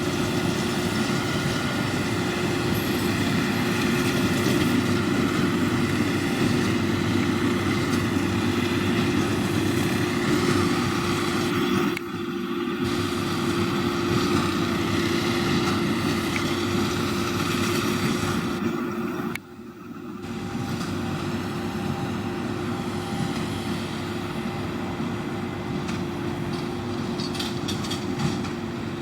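John Deere 7530 tractor's six-cylinder diesel engine running steadily under load while driving a Massey Ferguson 2270 square baler, the baler's machinery working along with it. The sound drops out and resumes sharply twice, about twelve seconds in and about two-thirds of the way through.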